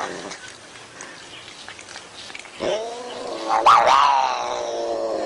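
Tortoiseshell cat yowling: after a quieter start, one long drawn-out call begins about two and a half seconds in, jumps up in pitch briefly, then slowly falls.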